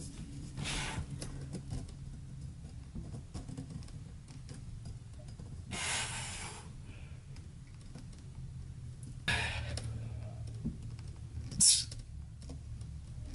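A man breathing hard through a set of pull-ups on a closet clothes-rod bar, with four sharp exhales spread through the set. Faint small clicks are scattered between them.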